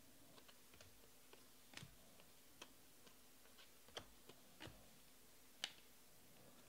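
Faint, irregular clicks and taps of Panini Prizm baseball cards being flicked and slid against one another in the hand as the stack is sorted. There are about half a dozen soft clicks, the clearest about four seconds in and again near the end.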